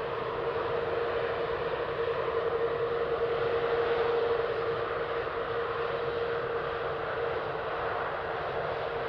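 Rolls-Royce Trent 7000 high-bypass turbofans of an Airbus A330-900neo running: a steady jet rush with one clear steady tone through it, growing a little louder a few seconds in and then easing off slightly.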